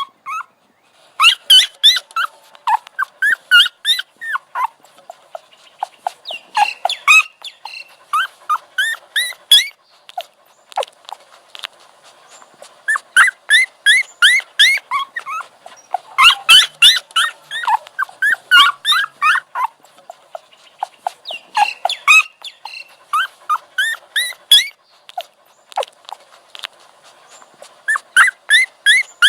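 Puppy whimpering and yipping: quick runs of short, high-pitched cries in bursts of a few seconds, with brief pauses between the bursts.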